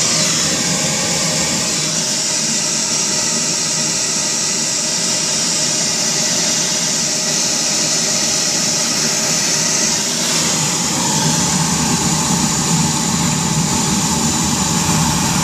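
Water spraying under pressure from a leaking pipe fitting by the water meter, a steady loud hiss with a low rumble beneath it.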